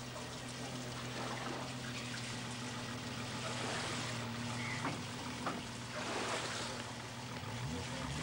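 Vehicle engine running slowly and steadily as it tows a boat trailer, a constant low hum under a hiss of noise.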